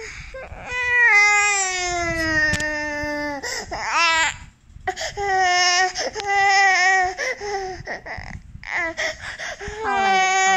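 A toddler crying: a long wail that slowly falls in pitch, then a run of shorter, wavering cries broken by quick gasps for breath.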